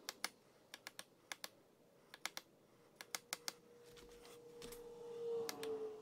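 Small sharp clicks in quick groups of two or three from hands turning and handling two dial indicators to zero them. A faint steady hum comes up over the last couple of seconds.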